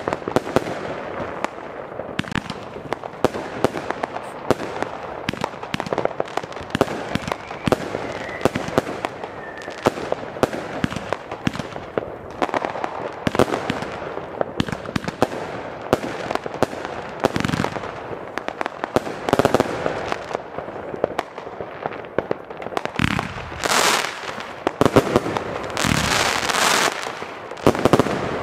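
Fireworks going off: a dense, irregular run of bangs and crackles, with several louder bursts of hissing crackle, each about a second long, in the last few seconds.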